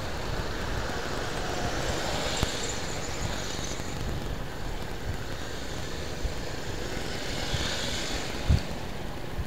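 Steady road-traffic noise heard while travelling along a busy road: engine and tyre rumble with wind on the microphone, and motorcycles and a minibus passing close by. A brief low thump comes near the end.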